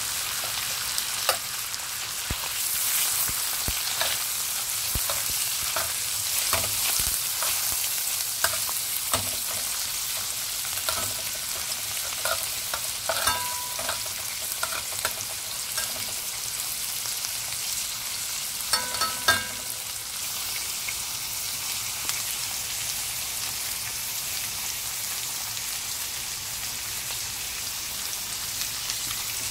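Boneless beef rib meat sizzling as it fries in butter in a pan. Metal tongs click and clink against the pan now and then, mostly in the first twenty seconds.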